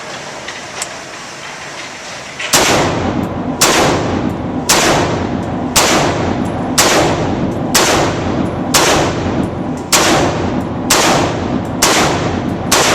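AR-15 rifle firing 55-grain 5.56 mm rounds from a bare muzzle with no flash suppressor: a steady string of single shots about one a second, starting a couple of seconds in, each with a short echo.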